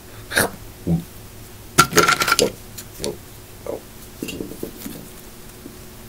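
A person's voice making a string of short non-word vocal noises, with a louder cluster about two seconds in and softer mumbling near the end.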